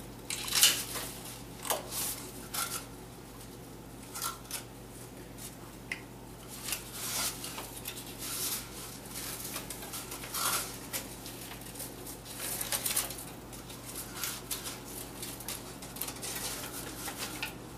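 Kitchen handling sounds: irregular light clicks, taps and rustles as refrigerated Danish dough rolls are taken from their opened tube and set on a metal cookie sheet, over a faint steady hum.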